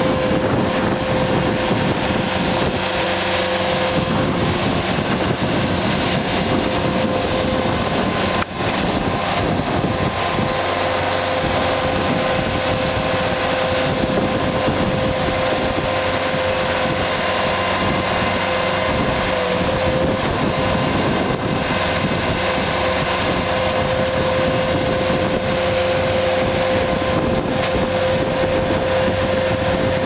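2010 Bobcat S185 skid steer's Kubota 2.6-litre four-cylinder diesel running at a steady speed, with a constant tone held over the engine noise.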